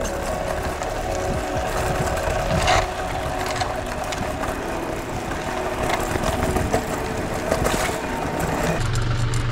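Mountain bike tyres rolling over loose gravel, a steady crunching with frequent small clicks and rattles from the bike. Near the end it gives way abruptly to a steady low hum.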